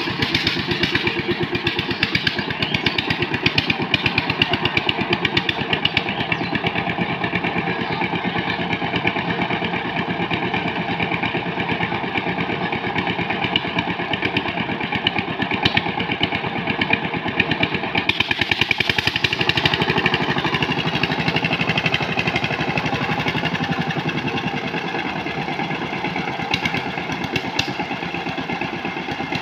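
Power tiller's single-cylinder diesel engine running steadily under load in a fast, even beat. About two-thirds of the way in, its note turns higher and brighter.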